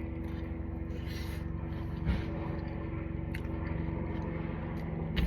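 Eating sounds from food being bitten and chewed: a few short, sharp clicks and smacks, over a steady low mechanical hum.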